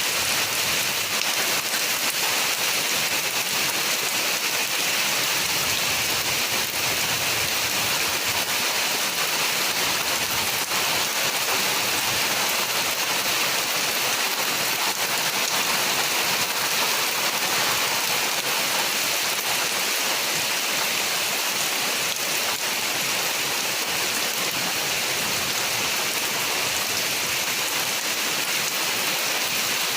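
Steady rain falling, an even hiss with faint scattered drop ticks and no letup.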